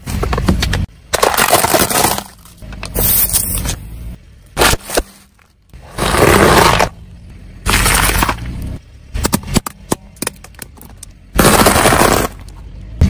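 Car tyre rolling slowly over objects on asphalt and crushing them: a string of loud crunching, cracking and scraping noises in separate stretches with short pauses between, and a few sharp cracks.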